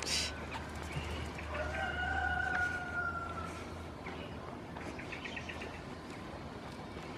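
An animal call about two seconds long that falls slightly in pitch, starting about a second and a half in. It comes over a low steady rumble, after a brief noisy burst right at the start.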